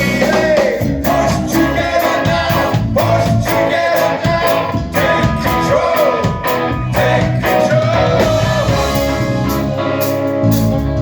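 A live rock band playing, with a lead melody that bends up and down in pitch over guitar, bass and drums.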